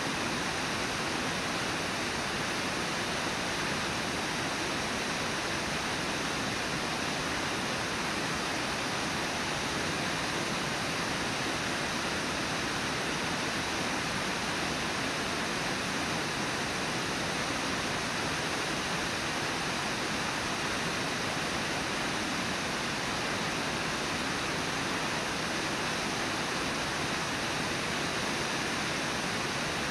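Brooks Falls, a wide river waterfall, rushing steadily: a constant, even wash of falling white water with no breaks.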